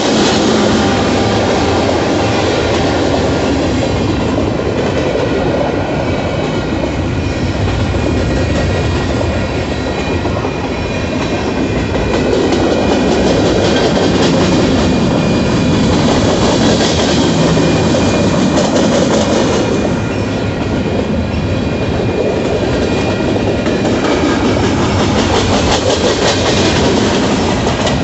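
Union Pacific freight train's covered hopper cars rolling past, a loud steady rumble with wheels clicking over the rail joints.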